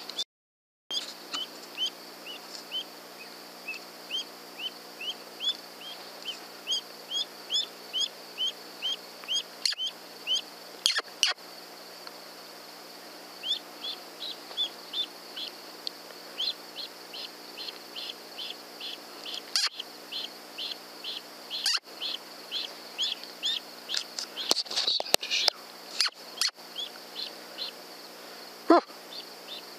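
A long series of short, high chirping calls, about two a second, with a brief pause partway through, over a steady high-pitched drone. A few sharp clicks break in.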